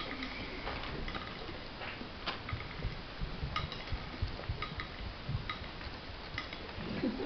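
Irregular small clicks of peas dropping one at a time from a drinking straw onto a china plate, each with a faint ring, over low knocks.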